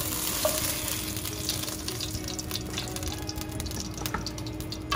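Oil sizzling in a nonstick frying pan as lightly fried, turmeric-coated rui fish pieces are lifted out with a wooden spatula, with a few sharp clicks of the spatula against the pan. The sizzle thins in the second half once the pan is empty.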